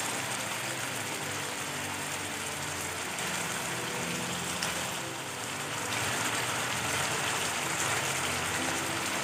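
Diced chicken breast frying in hot oil in a nonstick pan, a steady sizzle as the pieces brown on their second side. The sizzle gets a little louder about six seconds in.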